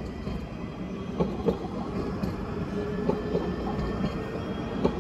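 Alstom Citadis 305 tram passing, its running noise growing louder, with a steady hum and a few sharp clacks from the wheels on the rails.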